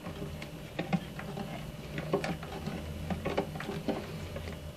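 Spoon stirring rice soaking in salted hot water in a bowl: faint, irregular light clicks and knocks.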